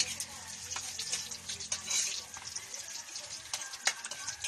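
Chopped garlic sizzling in hot oil in a wok while being stirred, with frequent sharp crackles and pops.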